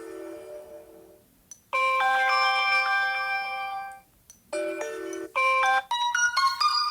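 Sony Xperia notification tones played back one after another through the phone's speaker, each cut off as the next is chosen. A chime fades out, then a bright chord rings for about two seconds. Near the end come several short tones in quick succession, finishing in a rising run of notes.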